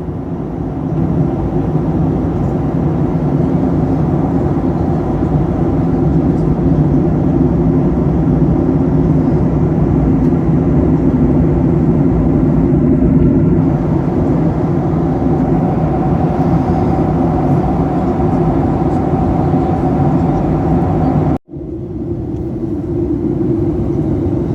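Airliner cabin noise on approach: a steady, even rumble of engines and airflow. It breaks off for an instant about three quarters of the way through, then carries on unchanged.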